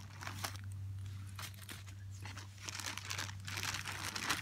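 Clear plastic zip-top bag crinkling and rustling as it is handled, in irregular bursts of crackle. A steady low hum runs underneath.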